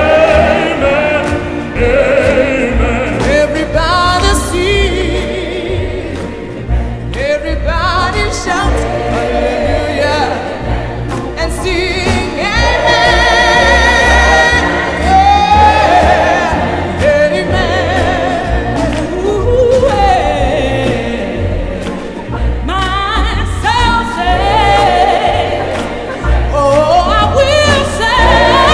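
A gospel-style choir sings, with lead and group voices, over instrumental backing that carries a steady low beat.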